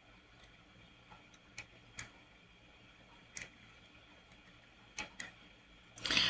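Quiet, scattered single clicks from a computer mouse, one every half second to second and a half, as the on-screen whiteboard is zoomed in step by step. A short hiss comes near the end.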